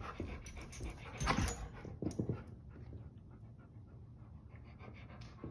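Black Labrador panting in quick, even breaths while excited over a rope toy, with two louder bursts of noise about one and two seconds in.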